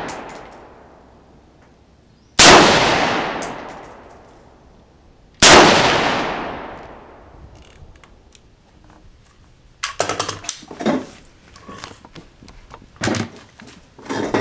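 Two shots from a Rock River Arms CAR-15 (AR-15-type carbine), about three seconds apart, each followed by a long echo that fades over two or three seconds. Later comes a run of small clicks and knocks of handling.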